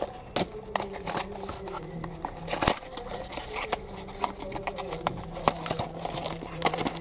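Scissors snipping through the cardboard of a small toy-car box, then cardboard flaps pulled open and the packaging handled: a scatter of sharp clicks and rustles.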